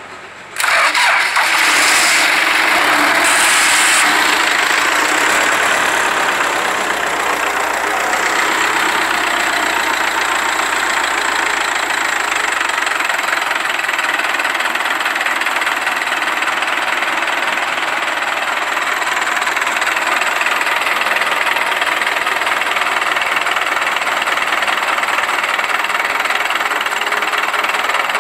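Belarus 892 tractor's four-cylinder diesel engine starting about half a second in with a sudden loud onset, a little louder for the first few seconds, then running steadily.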